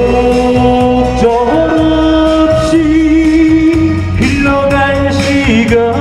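A man singing a Korean popular song into a microphone, holding long notes over instrumental accompaniment.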